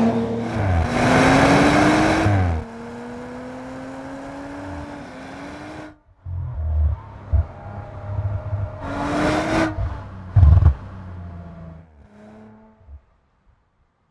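Audi RS5 Sportback's 2.9-litre twin-turbo V6 accelerating in short passes, the engine note rising and dropping, with two loud rushing drive-bys. The sound breaks off abruptly about six seconds in and fades out near the end.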